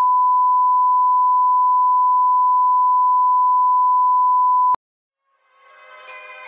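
Steady 1 kHz line-up reference tone played with the colour bars, cutting off suddenly a little under five seconds in. After a brief silence, music with several held notes fades in near the end.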